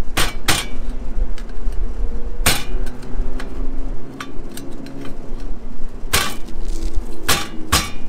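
Half a dozen sharp knocks and clinks at irregular intervals, over a steady low rumble.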